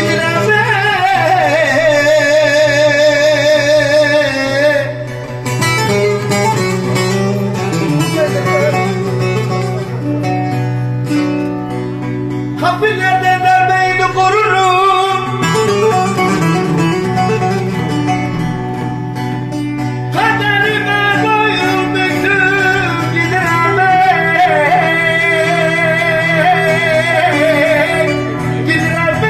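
A man singing an uzun hava, a free-rhythm Turkish folk song, in long held notes with heavy vibrato and ornaments, over a plucked-string accompaniment and a steady low drone.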